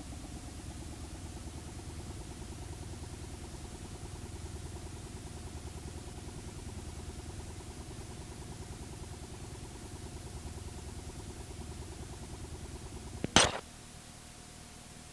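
Steady low rumble with a faint constant tone, cut off by one sharp click about thirteen seconds in, after which only faint tape hiss remains: the end of the recorded part of a videotape.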